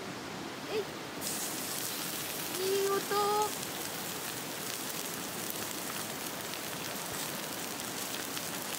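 Thick beef steak sizzling on the grill of a small folding wood-fire stand. The sizzle starts suddenly about a second in as the meat goes down and keeps going, flecked with fine crackles. A brief wordless voice sounds about three seconds in.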